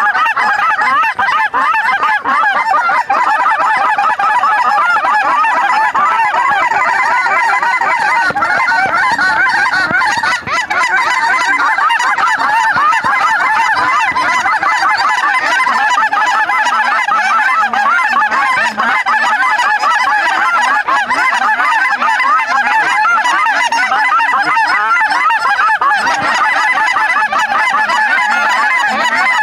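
A large flock of lesser Canada geese honking: a dense, continuous chorus of many overlapping calls that never lets up.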